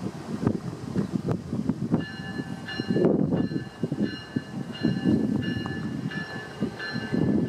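Locomotive bell on a Norfolk Southern SD70 ringing steadily, about two strikes a second, starting about two seconds in, over the low rumble of the diesel locomotives rolling slowly.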